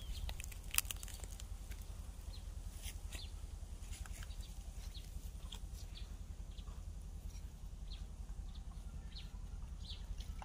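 Outdoor ambience: a steady low rumble with short, high-pitched ticks scattered through it, about one a second.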